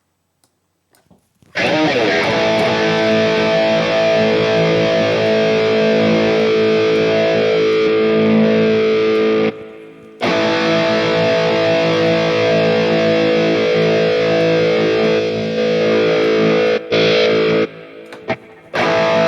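High-gain distorted electric guitar played through a modeling unit's VH4 amp model: a chord is struck and left ringing for about eight seconds. After a brief break about ten seconds in, the same kind of chord is played and held again.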